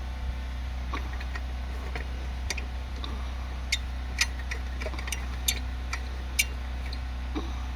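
Sharp, irregular metallic clicks, about six to eight spread over several seconds, from tools and blade parts being handled while a lawnmower blade is refitted, over a steady low hum.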